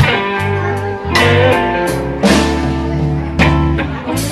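Live blues band playing an instrumental stretch between sung lines: electric guitars over a walking bass line, with drums and cymbals keeping time.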